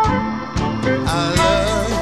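Electric Chicago blues band playing an instrumental passage: drums and bass under a lead line that bends and wavers in pitch.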